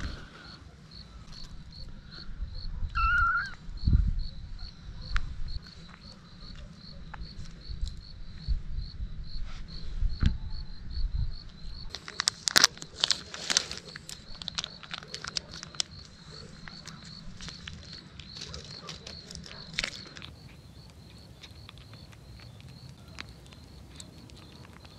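A cricket chirping steadily, a short high chirp about twice a second, with scattered rustling and knocks; a burst of crackling rustles about halfway through is the loudest part.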